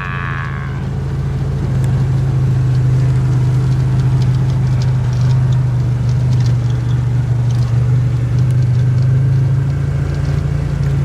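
Quad (ATV) engine running steadily with a low, even hum, getting a little louder a second or two in.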